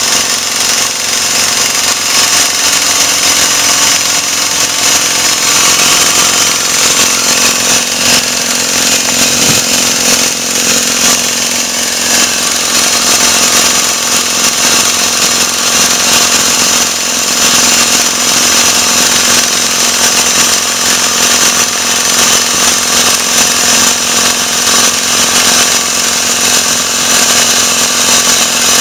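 Sky Drill boom-mounted anchor drilling rig boring anchor holes into a slope: loud, steady machine noise, with a steady hum joining in about eight seconds in.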